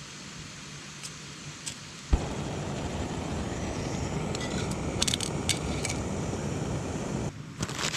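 Portable gas camping stove lit with a sharp pop about two seconds in, then burning with a steady rushing noise under a pot, cutting out near the end.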